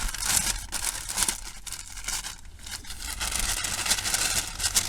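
Paper wrapping crinkling and tearing as a sandwich is unwrapped by hand, an irregular crackle throughout, over a low steady hum.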